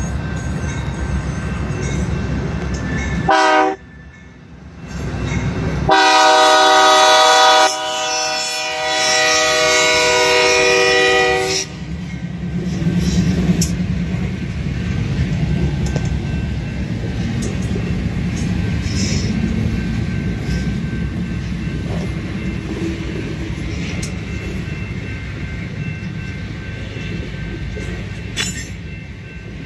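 BNSF diesel freight locomotive sounding its horn: a short blast about three seconds in, then a long loud blast from about six to twelve seconds in. After that the freight train rumbles and clatters steadily past the crossing.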